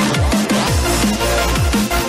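Background electronic dance music, drum and bass in style, with a fast steady beat and bass notes that sweep steeply downward again and again.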